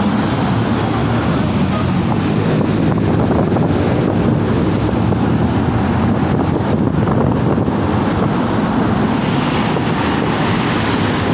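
Riding on a motorcycle: steady wind noise on the microphone over the engine and road noise.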